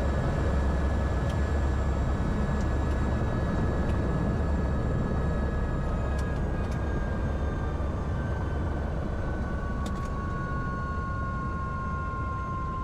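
Helicopter running, heard on board: a steady low rumble of rotor and engine, with a whine that slowly falls in pitch while the overall level eases a little.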